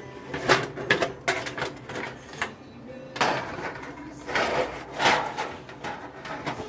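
A small metal pan being set down and handled on an electric coil stovetop: a run of sharp knocks and clinks, then rougher scraping clatter a few seconds in.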